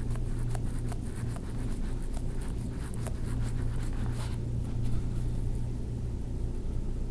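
Hands rubbing and kneading a bare foot and ankle: faint scratchy skin friction with light clicks, over a steady low hum.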